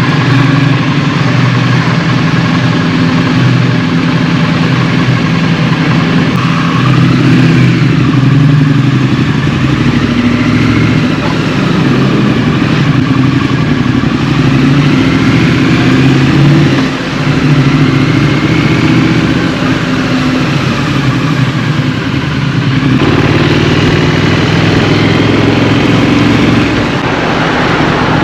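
Triumph Street Scrambler's 900 cc parallel-twin engine running under way, its note rising and falling as the rider changes speed, with wind hiss over it. The sound dips briefly about two thirds of the way through.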